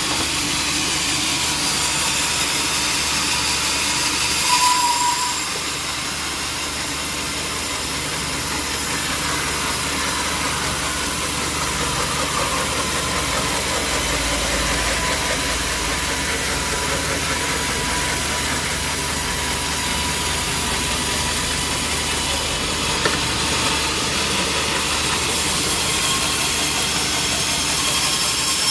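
Sawmill machinery running steadily, an engine-driven hum under a hissing noise, with a brief louder burst about five seconds in.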